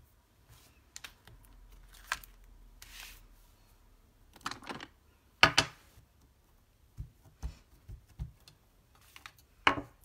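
Clear plastic stamp case and acrylic stamping block being handled: scattered light clicks, taps and plastic rustles, with a sharper clack about five and a half seconds in and a few small knocks soon after.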